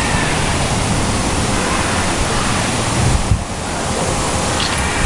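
Strong storm wind blowing hard and buffeting the microphone with rumbling low gusts. It eases briefly about three seconds in.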